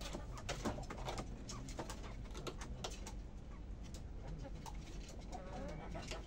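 Soft cooing bird calls, with a wavering call about five seconds in, over scattered light clicks and rustles and a sharper tap under a second in.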